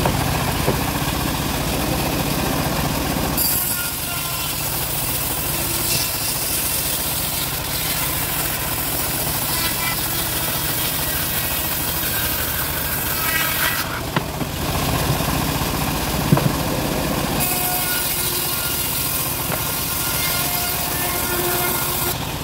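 Homemade bandsaw mill running steadily while its blade saws lengthwise through a teak log, the noise changing character a few times as the cut goes on. There are a couple of sharp knocks about two-thirds of the way through.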